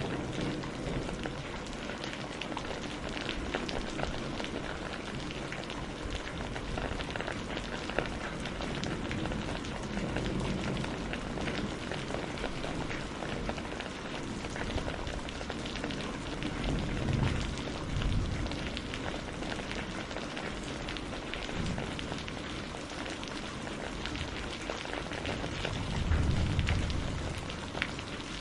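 Steady rain pattering on a greenhouse, dense with individual drop ticks. A low rumble swells up three times, loudest near the end.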